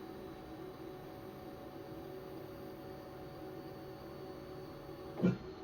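Onefinity CNC's stepper motors giving a steady whine during the touch-probe zeroing routine, ending with a sharp click near the end as the motion stops.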